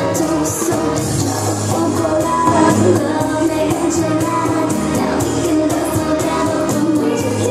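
Upbeat Latin dance music with a singer over a steady beat.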